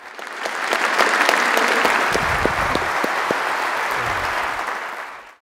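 Audience applauding at the close of a lecture, swelling over the first second into steady clapping and cut off abruptly near the end.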